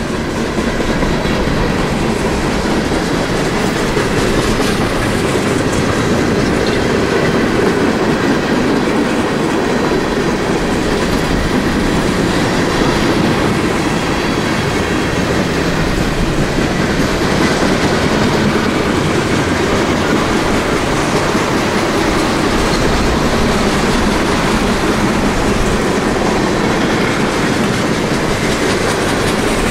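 Norfolk Southern freight train's cars rolling past at close range: a steady, loud noise of steel wheels on rail.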